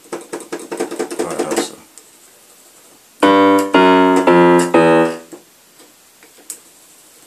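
Casio electronic keyboard's speaker sounding piano-tone notes as its keys are pressed one after another to find the dead ones. A quick run of short notes comes first, then four longer notes in a row about three seconds in.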